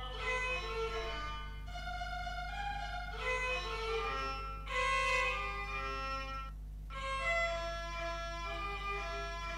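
Instrumental background music: a melody of notes changing every half second or so over a steady low hum.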